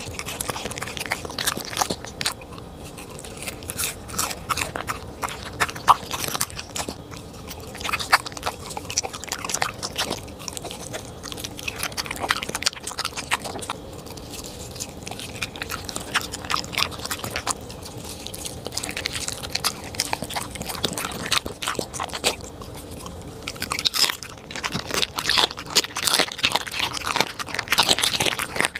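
A corgi biting and chewing raw food: irregular, wet chewing with crunching. It grows busier and louder in the last few seconds as the dog gnaws on raw chicken wing tips.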